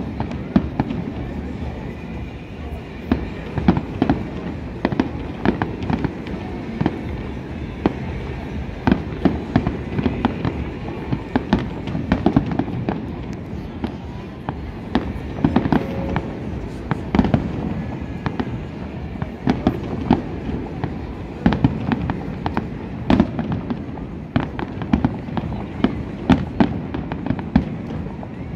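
Fireworks display going off in a continuous barrage of sharp bangs and crackles, several each second, over a low rumble.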